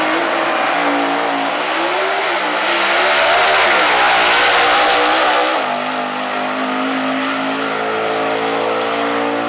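Early-1960s Chevrolet super stock drag car's V8 launching at full throttle and accelerating down the strip. The engine note rises and dips over the first couple of seconds, drops suddenly about five and a half seconds in, then holds a steady drone as the car pulls away.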